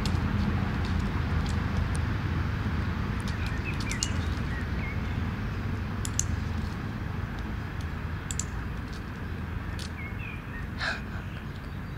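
A dog-training clicker giving short sharp clicks a few times, marking the dog's steps onto the stool, over a steady low outdoor rumble with faint bird chirps.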